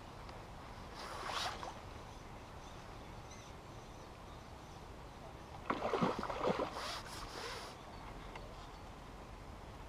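Water splashing at the lake surface as a hooked carp of about 10 lb is drawn to the landing net on a pole. There is a short splash about a second in, then a louder, longer bout of splashing from about six to eight seconds in.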